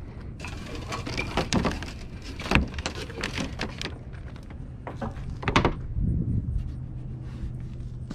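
Sailboat rigging being handled by hand: wire shrouds, lines and metal fittings clink, rattle and knock irregularly, with a sharp knock about 5.5 s in. A low steady hum runs underneath.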